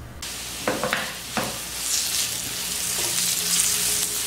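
Curry leaves sizzling as they hit hot coconut oil in a wok with fried shallots, garlic and chilli. The hiss starts suddenly just as they go in, and a spatula stirs through it with a couple of sharp knocks against the pan in the first second and a half.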